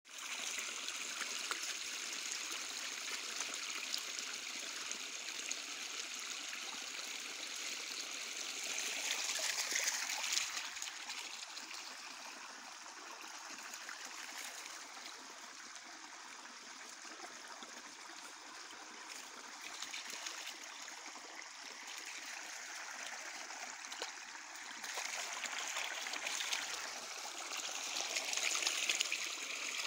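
Shallow woodland creek trickling and babbling over stones and small riffles, a steady flowing-water noise that grows louder around ten seconds in and again near the end.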